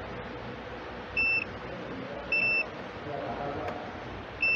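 Digital multimeter's continuity buzzer giving three short, high, steady beeps, the last one near the end, as the probes touch fuses: each beep means the fuse has continuity and is intact.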